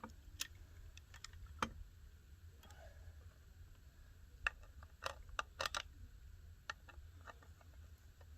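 Scattered light metallic clicks of a chainsaw chain's links being worked by hand around the guide bar, about ten irregular ticks, over a low steady hum.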